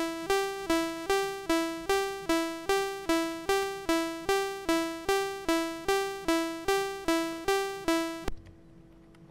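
Commodore 64 SID chip playing a sawtooth-wave 'piano' instrument: a short E4 note repeated about two and a half times a second, each note fading quickly as the sustain is set lower. It stops abruptly about eight seconds in.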